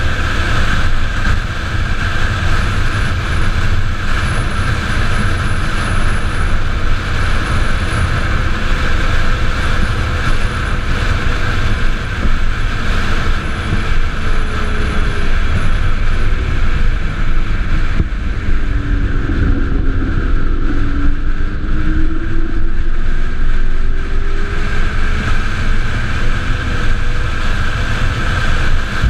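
Steady wind rush and road noise on a camera mounted on the body of a solar race car at speed, heavy in the low end. A faint whine slides down and back up in pitch about two-thirds of the way through.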